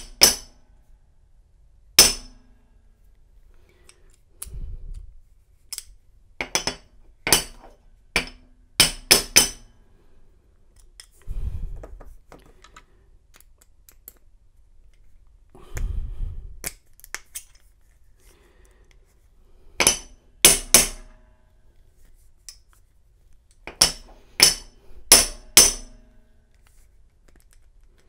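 Sharp metallic hammer taps on a small punch, in scattered groups of one to three strikes, beating a retaining pin out of an American 747 padlock, with duller handling knocks in between.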